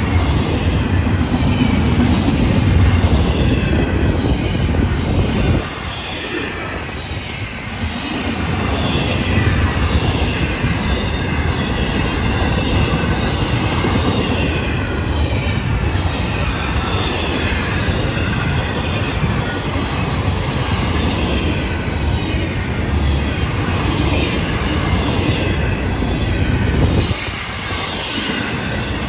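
Freight train's intermodal well cars rolling past on the rails: a steady rumble of wheels on track, with a high wavering squeal from the wheels over it. The low rumble drops away briefly about six seconds in and again near the end.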